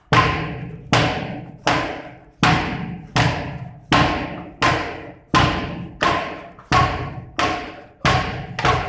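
Boxing gloves striking a trainer's focus mitts: a steady run of about thirteen sharp smacks, roughly three every two seconds, each ringing out with a short room echo.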